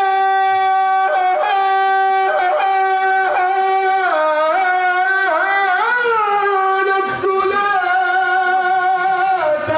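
A male nasheed singer holding one long, high sung note, decorated with melismatic turns and dips in pitch around the middle and again near the end, with a few short knocks over it.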